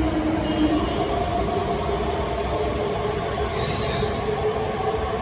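Beijing Subway Line 8 train pulling into the station behind platform screen doors: a steady rumble of wheels on rail with several held whining tones.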